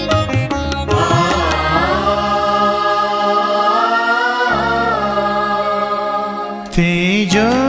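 Marathi devotional song music: a few plucked string notes, then a long melodic line that slides up and down in pitch over tabla. A new melodic phrase comes in near the end.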